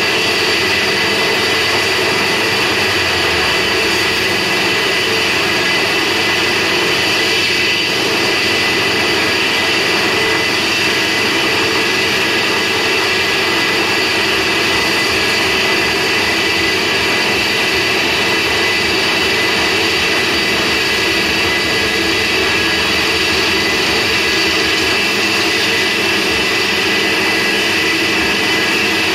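Home-made band saw driven by a 4 kW spindle motor, running steadily with a constant whine over a noisy hum while it cuts a block of polystyrene.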